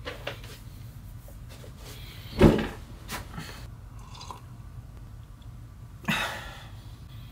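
A person settling into a seat in a small room, with a thump about two and a half seconds in, then faint sipping from a mug and a second, softer rush of noise about six seconds in, over a low steady room hum.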